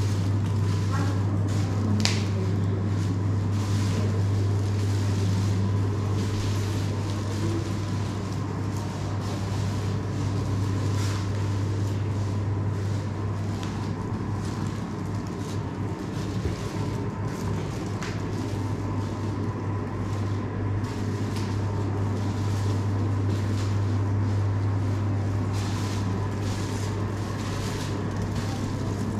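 A steady low hum runs throughout, with a faint steady higher tone and a background noise haze. A few faint clicks are scattered through it.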